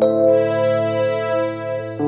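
Background music: sustained keyboard chords, a new chord struck at the start and another change near the end.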